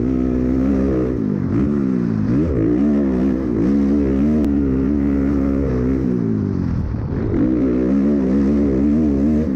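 Off-road vehicle engine running hard under throttle, its pitch dipping twice as the revs fall and climbing back each time.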